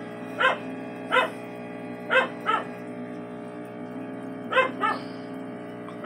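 Pet dog barking in short, sharp barks, about six of them, some coming in quick pairs, over a steady hum.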